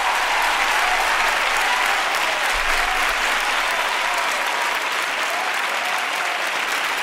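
Large concert audience applauding steadily after a song ends.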